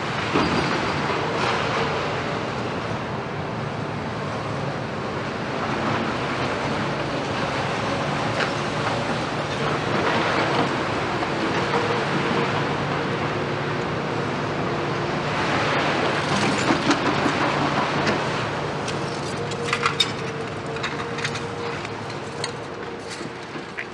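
Tracked demolition excavators, among them a Liebherr R 936, run their diesel engines steadily while their attachments work through broken concrete and rebar. Rubble clatters throughout, and a cluster of sharp knocks comes about twenty seconds in.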